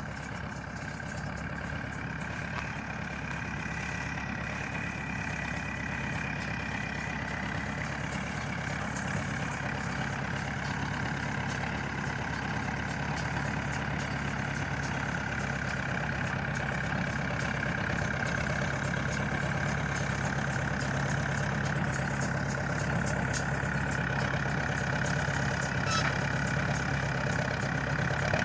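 Farm tractor engine running steadily, with a steady high whine over it, growing gradually louder.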